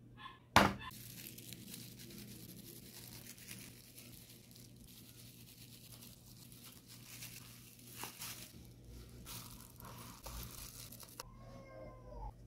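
Powdered sugar being sifted over a metal loaf tin of set Turkish delight: a steady dry rustling and crinkling with a few soft taps, after a sharp knock about half a second in and before a brief squeak near the end.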